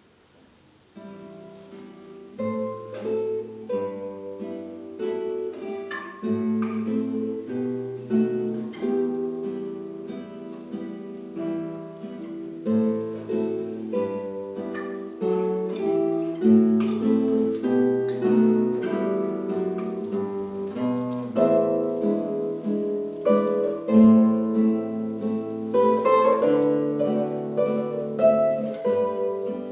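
Two acoustic guitars playing a Russian folk-song arrangement in duet, plucked melody over a bass line, starting about a second in.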